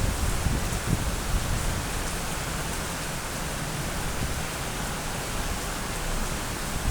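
Steady rain falling, an even hiss with gusty low rumbles that may be wind on the microphone.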